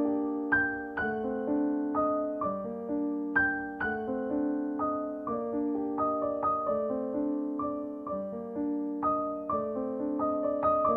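Slow, gentle piano background music: single notes struck about twice a second, each ringing and fading under the next, over held lower notes.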